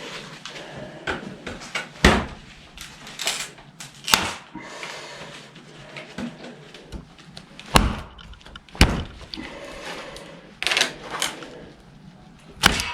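Victorinox Hunter XS pocketknife being knocked hard, five sharp knocks a few seconds apart with lighter clicks between, a test of whether its liner lock holds.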